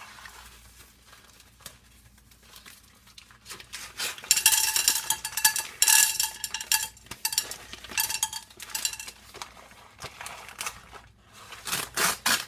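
Paper microwave-popcorn bag being torn open and crinkled, with a loud run of tearing and rustling about four to seven seconds in and more crinkling bursts after. Light clinks of cookware come in between.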